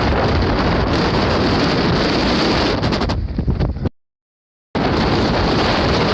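Loud, steady rush of wind buffeting the microphone. It cuts off abruptly about four seconds in, leaving dead silence for under a second, then starts again.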